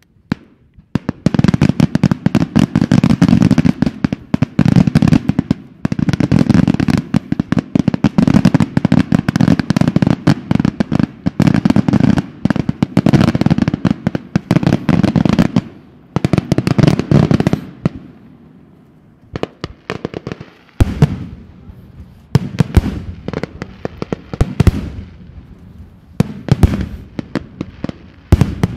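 Daytime fireworks: a dense, rapid salvo of crackling reports starting about a second in and running for some fifteen seconds, then thinning out and giving way to separate louder bangs from about twenty seconds in.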